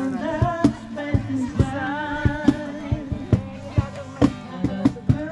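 Music playing: a song with a singing voice over a steady drum beat.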